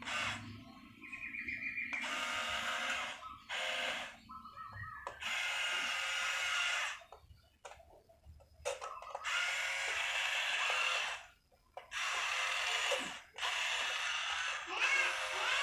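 Small electric gear motors of a remote-control toy excavator whirring in on-off bursts of about half a second to two seconds, starting and stopping as the controls are worked.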